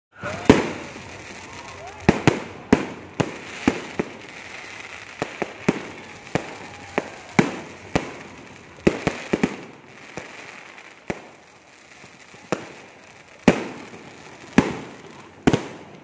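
Aerial fireworks bursting: an irregular series of sharp bangs, at times two or three within a second, with a sparser lull about two-thirds of the way through.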